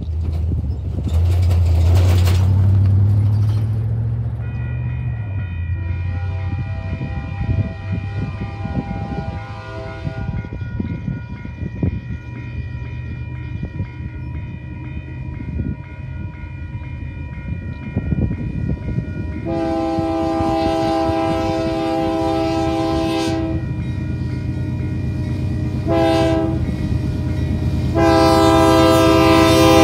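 Freight train locomotive blowing its horn for a grade crossing in the standard pattern: long, long, short, long, the first blast fainter and the last ones loud as the train nears. A railroad crossing bell rings steadily underneath, and the train's rumble grows near the end, after a low rumble in the first few seconds.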